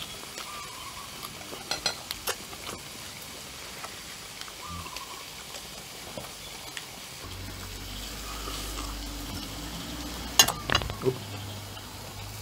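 Marinated beef slices sizzling steadily on a tabletop dome grill pan, with a few sharp clinks of chopsticks and tableware; the loudest clinks come in a cluster a little after ten seconds in. A low hum runs underneath for a few seconds in the second half.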